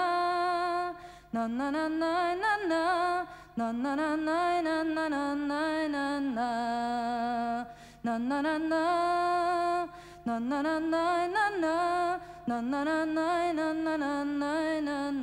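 A single voice singing unaccompanied in slow phrases of long, wavering held notes, each about two seconds, with short breaks between them. A faint steady low hum runs underneath.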